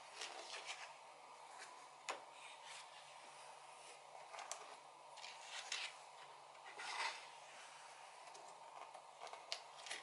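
Pages of a large photo book turned by hand: several soft paper swishes and rustles, with a sharp paper snap about two seconds in and the fullest swish about seven seconds in.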